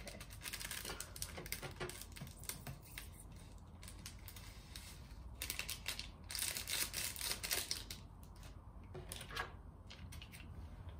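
Foil and plastic seasoning sachets being torn open, crinkled and shaken out over an instant hot pot, a run of small crackles and clicks that is busiest a little past the middle.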